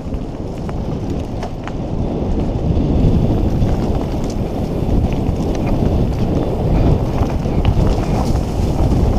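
Mountain bike descending a rough dirt trail at speed: wind rumbling on the helmet-mounted camera's microphone, with scattered rattles and knocks from the tyres and frame over the ground. The rumble grows louder over the first few seconds as speed builds.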